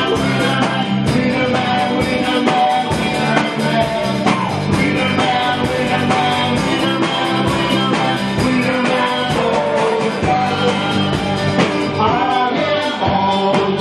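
Live praise and worship band playing: several voices singing into microphones over electric guitars and a drum kit, with a steady beat throughout.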